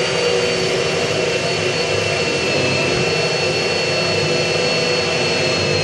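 Handheld power drill running at full speed, boring one of the suction holes through the down-draft table's top plate. A steady high motor whine sits over the cutting noise.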